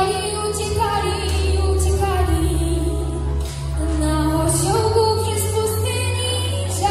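A young girl singing into a microphone over instrumental backing, holding long, sliding notes over a steady low bass.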